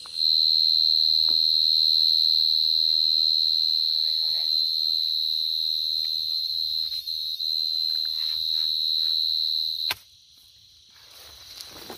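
Dế cơm (short-tailed burrowing cricket, Brachytrupes portentosus) close by, singing one loud, steady, high-pitched trill that cuts off suddenly near the end.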